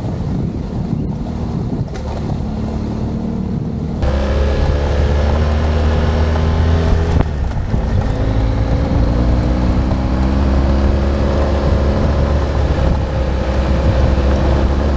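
BMW F800GS parallel-twin motorcycle engine running under way on a gravel road, with wind on the microphone. The first few seconds are a muffled rumble; then the engine note comes through clearly, its pitch climbing several times as the bike pulls uphill.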